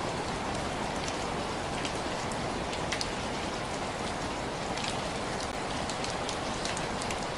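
Steady rain falling, an even hiss with many scattered drops ticking on a surface.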